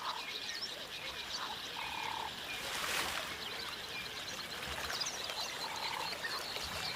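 Riverside wildlife ambience: a few short, single-pitched calls, each about half a second long, repeated at uneven gaps over a steady bed of small high chirps and twitters.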